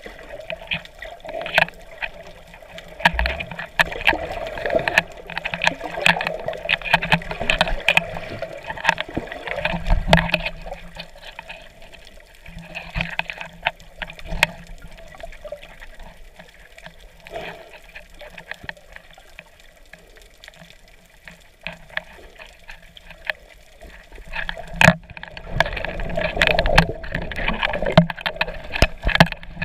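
Water sloshing and bubbling around a camera held underwater, muffled, with many small clicks and knocks; busier at first and again near the end, calmer in the middle.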